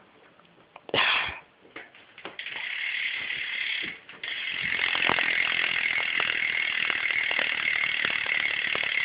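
BMX rear hub, an Odyssey Vandero, freewheeling as the back wheel spins, its pawls ratcheting in a fast, loud, even buzz. A short burst comes about a second in; the steady buzz starts about two and a half seconds in and breaks off briefly near four seconds.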